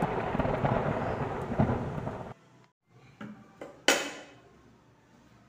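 A thunder-clap sound effect rumbling and fading, cut off abruptly a little over two seconds in, then a brief sharp sound about four seconds in.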